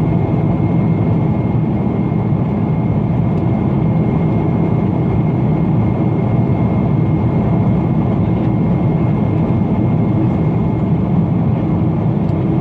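Steady low rumbling noise with a thin, steady high whine above it, holding at an even level.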